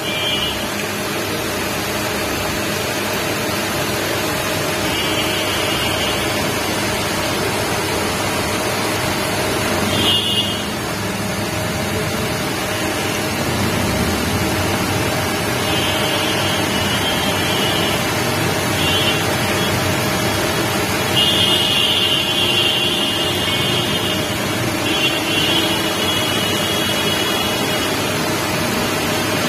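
Steady background noise with a faint constant hum, and faint high-pitched tones that come and go several times, loudest about three quarters of the way through.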